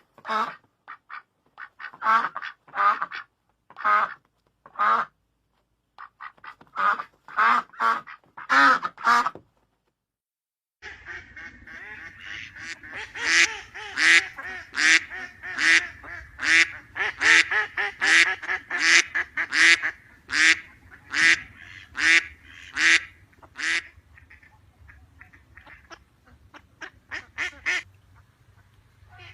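Ducks quacking in short runs of calls separated by pauses. After a brief silence about ten seconds in, a second recording with a low steady background noise carries a longer, quicker run of quacks that thins out near the end.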